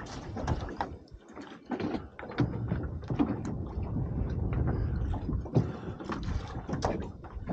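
Small waves lapping and slapping irregularly against the hull of a small boat.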